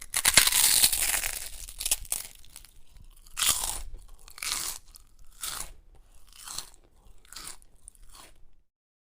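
Crunchy spicy french fries being bitten and chewed: a long crunching bite, then about six chewing crunches roughly one a second, growing fainter.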